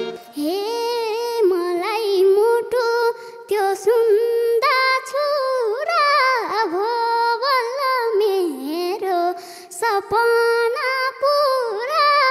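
A girl singing a Nepali folk melody solo into a microphone, without accompaniment, in ornamented, wavering phrases with a couple of short breaks between them.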